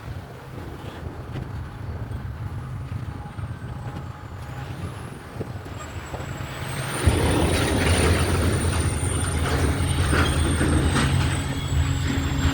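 Diesel locomotives approaching with a low engine rumble that slowly grows. About seven seconds in, the sound jumps sharply louder as the train reaches the microphone, adding a rushing rail and wheel noise, with a faint thin high whine over it.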